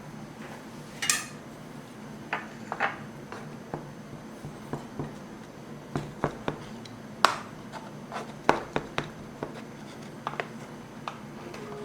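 Irregular light clinks and knocks of dishes and utensils being handled, with louder knocks about a second in and about seven seconds in.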